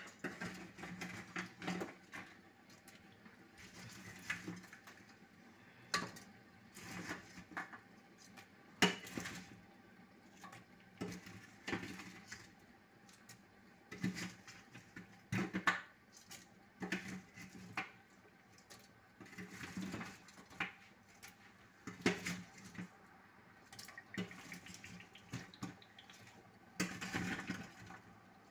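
Irregular wet splashes and clinks as pieces of cooked chicken are dropped into a metal pot of tomato stew, with a faint steady hum underneath.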